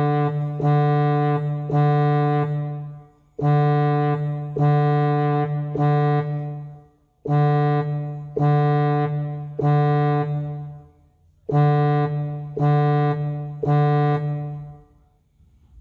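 Yamaha DGX-230 keyboard's trumpet voice playing a single low D over and over: three notes of about a second each, a short pause, and the pattern repeated four times, imitating a school fire alarm.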